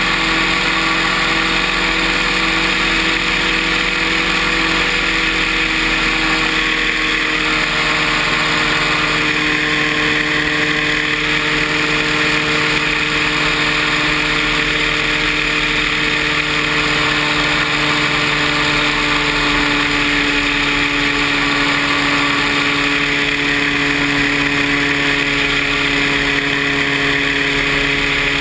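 Paramotor engine and propeller running steadily under power. The engine note shifts slightly about seven seconds in and then holds.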